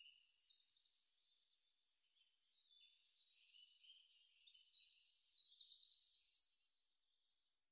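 Small songbirds singing: rapid high trills and chirps, faint for a few seconds, then louder with fast repeated-note trills in the second half, cutting off suddenly near the end.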